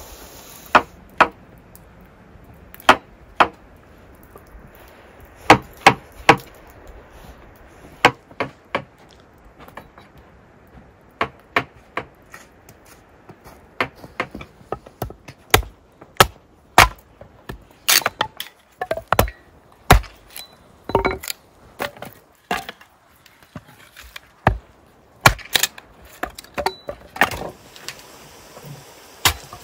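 Kitchen knife slicing button mushrooms on a wooden cutting board: many sharp, irregular knocks of the blade striking the board, coming more often in the second half.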